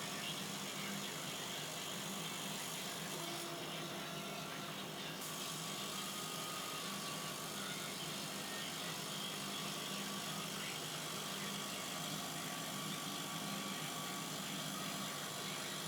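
Laser cutting machine running, a steady mechanical hum and hiss with no breaks.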